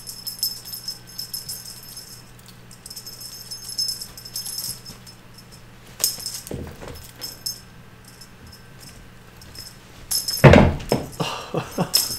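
A cat wand toy being shaken, rattling and jingling in quick bursts as kittens bat at it. About ten and a half seconds in, a cluster of loud thumps as the kittens leap and land.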